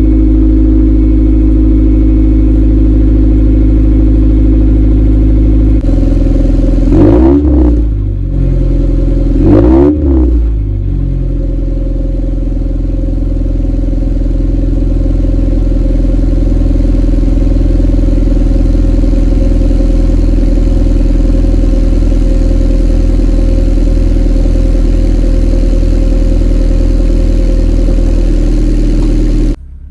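A 1990 Acura Integra DA9's 1.8-litre B18A1 four-cylinder idles cold through a GReddy SP2 exhaust, with a steady, quiet note. The revs rise and fall briefly twice, about seven and ten seconds in. A steady electrical hum from a nearby power pole runs underneath.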